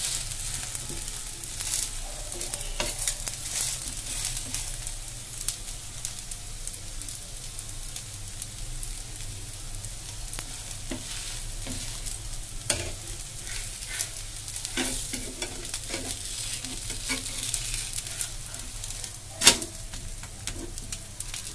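Bottle gourd and vegetable pancake sizzling in oil in a nonstick frying pan, with a metal spatula scraping and tapping against the pan. A single louder clack comes near the end, when the pancake is turned over.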